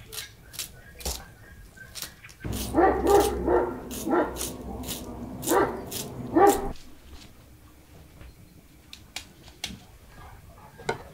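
Knife chopping onions on a cutting board in quick sharp taps, then a dog barking about half a dozen times over a low rumble, the loudest part. A few light knocks near the end.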